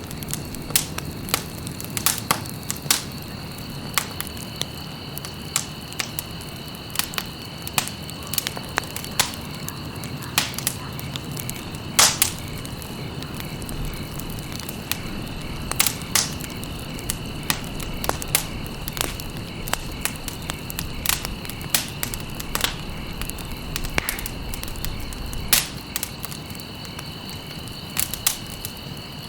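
Wood fire crackling, with irregular sharp pops and snaps over a low steady rumble of burning. A steady high-pitched trill carries on behind it.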